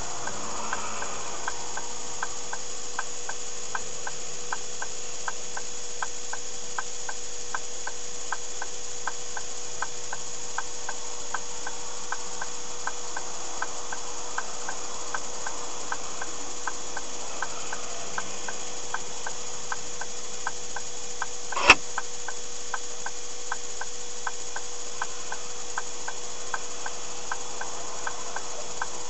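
Car turn-signal indicator ticking steadily in the cabin, about two clicks a second, over a steady electronic hum. One sharp knock stands out about three-quarters of the way through.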